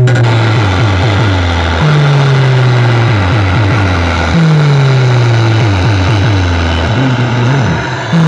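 Large DJ speaker stack of bass cabinets and horn speakers playing very loud electronic bass. A long deep note slides slightly down and starts again about every two and a half seconds, with a slow falling tone above it.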